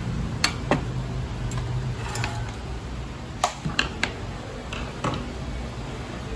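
Handling noise of plastic parts: a few light, irregular clicks and taps as the continuous-ink-system tubing and ink tanks are moved about on the workbench, over a low steady hum.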